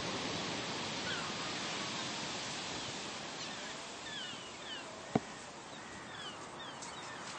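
Heavy surf breaking and washing in, a steady rushing noise, with gulls giving short, falling cries over it again and again. A single sharp click about five seconds in.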